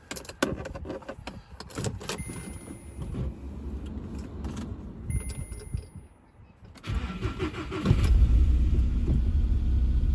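Cold start of a Volkswagen Polo sedan in frost: clicks and rattles first, with two short steady tones. Then the engine is cranked about 7 s in, catches at about 8 s and keeps running loud and steady.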